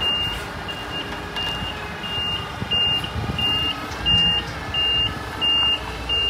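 Reversing alarm on a tractor-trailer truck beeping at an even pace, about three beeps every two seconds, over the low steady running of its diesel engine as it backs up.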